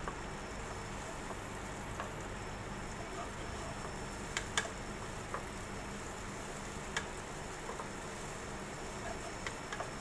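Blended chili paste frying in oil in a wok, a steady gentle sizzle while it is stirred with a spatula, with a few scattered sharp clicks.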